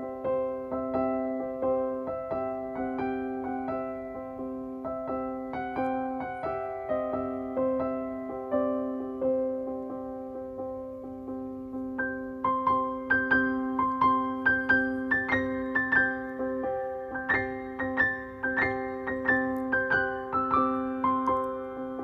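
Background piano music: a gentle melody of struck notes over held low tones, growing busier and louder with higher notes about halfway through.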